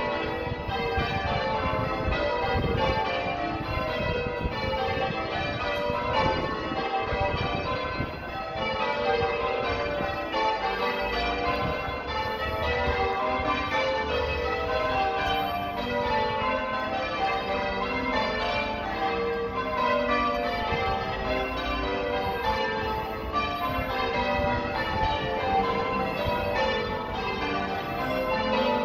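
Sacred Trinity Church's tower bells being rung full circle in change ringing: a continuous, even run of bell strikes, one bell after another with no pause.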